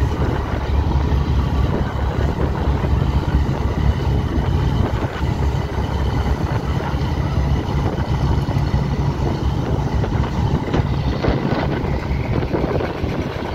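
Deep, steady drone of a river passenger launch's engine, with a rush of water and wind noise over it.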